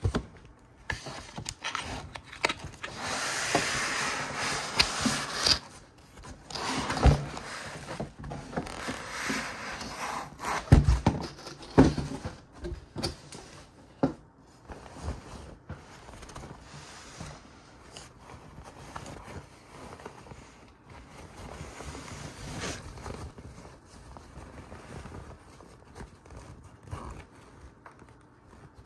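Packaging being handled: rustling and scraping, with several sharp knocks in the first half, then quieter scattered rustling.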